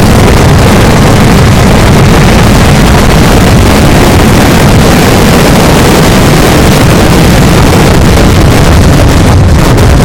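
Dense, unbroken barrage of festival fireworks, the explosions packed so close that they blur into one continuous loud din that overloads the microphone.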